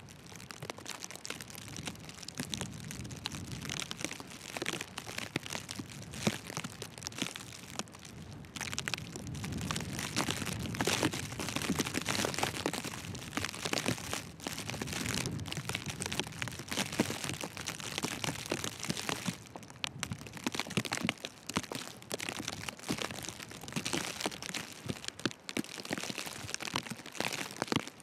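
Footsteps crunching through deep fresh snow, a dense, irregular crackle, with a low rumble of wind on the microphone swelling at times.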